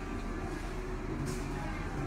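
Fast-food restaurant ambience: a steady low hum with indistinct background chatter.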